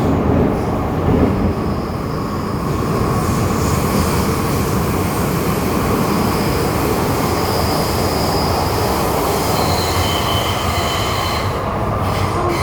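MTR M-Train electric multiple unit running and slowing to a stop at the terminus, with a steady rumble of wheels on track. High-pitched squeals come and go from about three seconds in until near the end.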